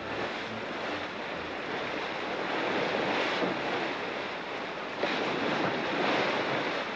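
Seawater rushing and churning in the foaming wash along a moving ship's hull, with wind. The rush swells and eases in surges.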